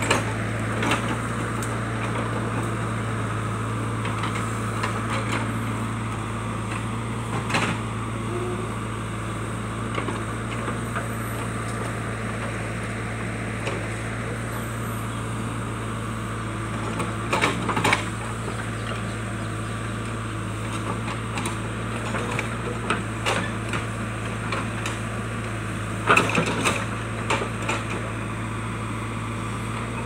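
JCB backhoe loader's diesel engine running steadily as the backhoe arm and bucket work through brush and shrubs. Several short bursts of clattering knocks and cracks from the bucket and debris break in, the loudest near the end.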